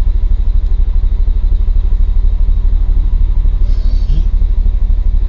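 Canal narrowboat's diesel engine running steadily under way, a loud, fast, even low throb.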